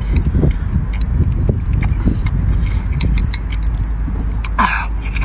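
Close-up eating sounds: chopsticks clicking against a glass dipping bowl, and wet chewing of spicy seafood, with a short slurp near the end. All of it sits over a steady low rumble.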